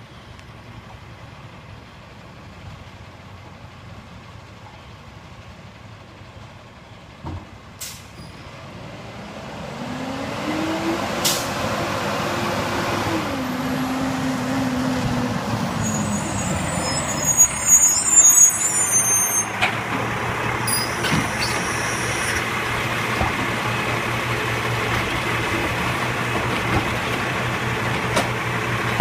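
Labrie Expert side-loading garbage truck pulling up: its diesel engine grows louder as it approaches, the engine note rises and then drops, and the air brakes hiss as it stops. The engine then runs steadily while the automated side arm lifts and tips a recycling cart into the hopper.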